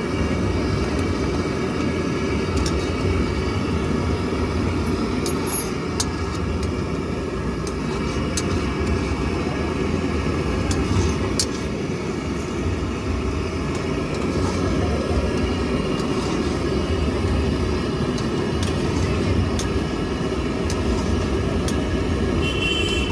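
Steady low rumble with occasional light clicks and scrapes of a steel ladle stirring sauce in a metal kadai.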